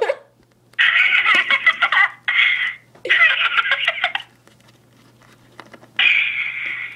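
Girls giggling in four high-pitched bursts of about a second each, with short quiet gaps between them.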